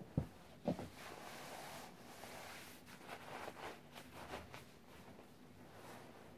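Shiny nylon down jacket and shorts rustling and swishing as the wearer moves, in a few short bursts through the middle, after a couple of soft low thumps near the start.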